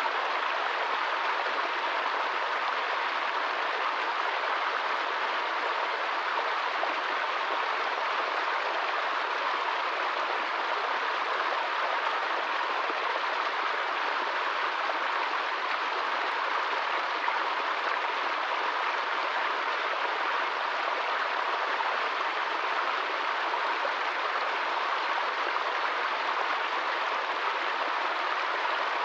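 Small woodland stream running over rocks in a shallow cascade: a steady, unbroken rush and splash of water.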